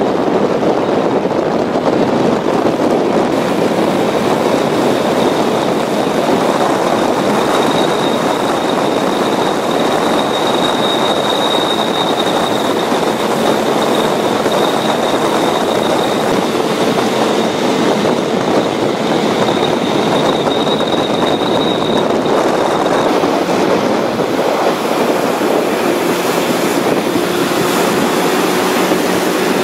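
Personal hovercraft running at speed over water: a steady, loud engine and ducted-fan noise with a faint high whine.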